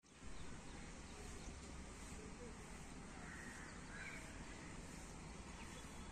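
Faint outdoor background noise with a couple of faint, short bird calls about three and four seconds in.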